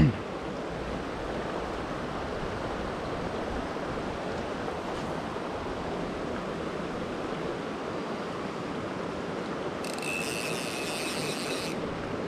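Steady rush of a shallow, fast mountain creek. Near the end, a fly reel's click-and-pawl ratchet buzzes for about two seconds as line is pulled off or wound in.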